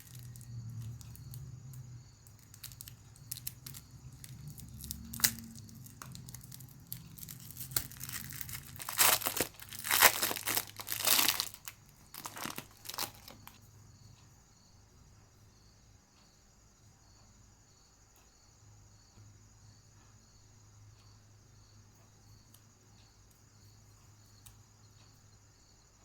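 Packaging crinkling and being torn open by hand, with scattered rustles and clicks at first and a louder run of tearing about eight to thirteen seconds in; after that it goes quiet.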